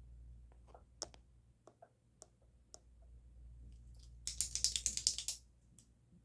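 A pen handled close to the microphone: scattered light clicks and ticks, then about four seconds in a dense run of rapid, scratchy clicking lasting about a second.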